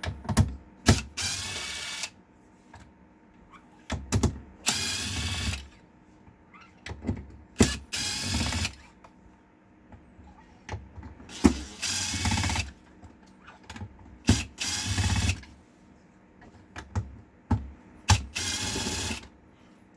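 A power screwdriver runs six times for about a second each, backing out the screws that hold the lid of a resin 3D printer, with sharp clicks as the bit is set onto each screw.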